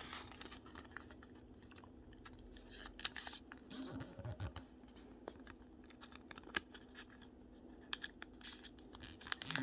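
Origami paper being handled and creased: faint scattered rustling and crinkling as the cicada's wing flaps are spread out, over a steady low hum.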